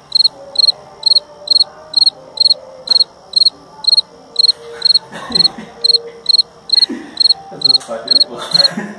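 Cricket chirping steadily and loudly, about two high chirps a second, with low laughter underneath toward the end.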